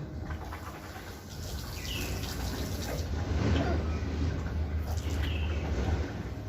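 Water running or pouring, swelling from about three seconds in, with a few short high chirps over it.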